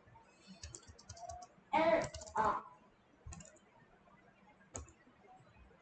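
Computer keyboard typing: scattered light key clicks, with a short voice sound about two seconds in that is the loudest thing.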